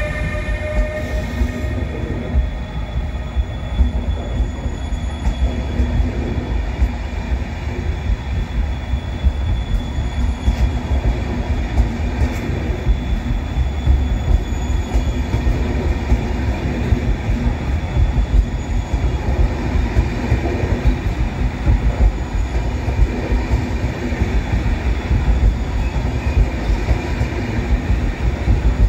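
PKP Intercity passenger coaches rolling past on departure: a steady, continuous rumble of wheels on rail.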